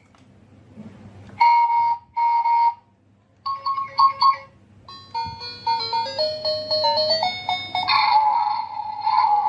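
Electronic sound effects: two short beeps, then a quick tinny tune of stepped notes, then a held, slightly wavering tone near the end.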